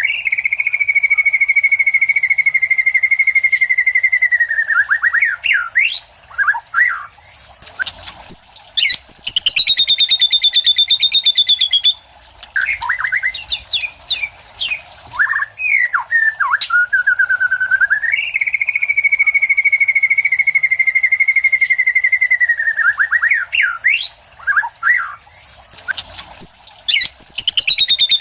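White-rumped shama (murai batu) singing loudly: a long fast trill held for about four seconds, a burst of varied short notes, then a higher fast trill, with the whole phrase sequence repeating once. The song carries mimicked material such as lovebird 'cililin' trills and sparrow calls.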